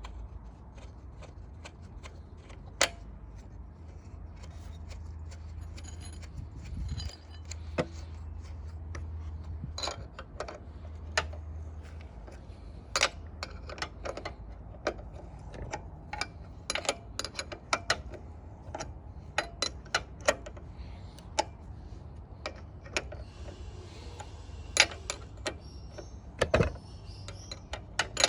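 Irregular sharp metallic clicks and clinks of hand tools on engine parts as a Tecumseh lawn mower engine is tightened back together. A steady low hum runs underneath.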